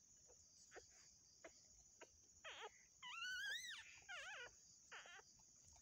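Faint, thin, high-pitched dog cries: four short wavering squeals that rise and fall in pitch, starting about halfway through, from a dog in the middle of whelping.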